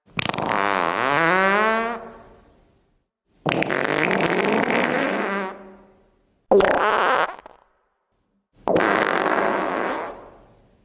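Four fart sound effects, one after another with short silences between them: the first long and pitched, dipping then rising in pitch; the second and fourth longer and rougher; the third short.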